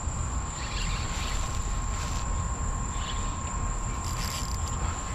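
Night insects, crickets, trilling in a steady high-pitched chorus, over a low rumble.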